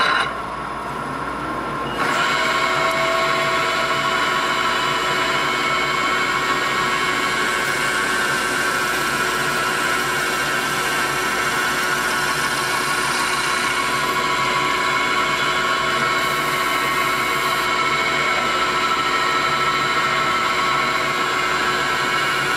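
CNC milling machine spindle speeding up over the first two seconds. It then runs at a steady whine, with several steady tones and a hiss, as the drill bit cuts holes in a metal spring clamp.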